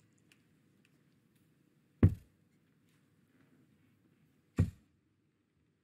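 Two steel-tip darts thud into a sisal bristle dartboard, about two and a half seconds apart, each a short sharp knock.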